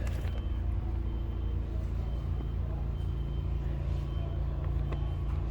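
Steady low engine drone, even and unchanging, with a few faint clicks.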